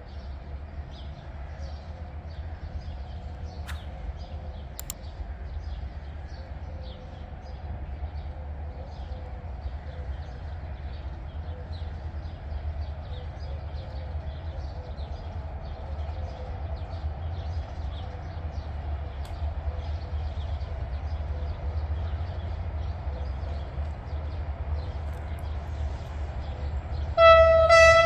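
Diesel locomotive running with a steady low rumble and a steady hum. Faint quick high ticks sound throughout. About a second before the end, the locomotive's horn starts one loud blast, the loudest sound.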